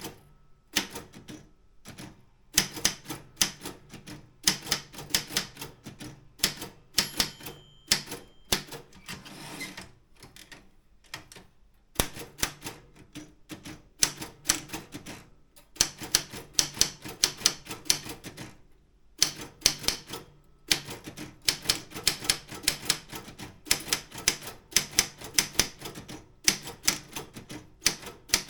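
Optima M16 manual typewriter being typed on: keys striking the platen in quick runs of sharp clicks, several a second, with short pauses between runs.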